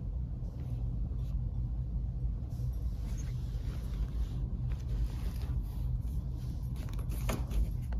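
A cat batting a cloth toy mouse about on a wooden floor: scattered light taps and scrapes of paws and toy, with one sharper click about seven seconds in, over a steady low rumble.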